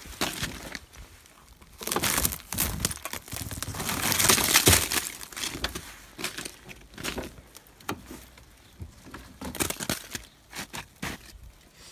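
Snow being swept and knocked off a car's side window and mirror: a series of irregular rustling sweeps, the longest and loudest a few seconds in.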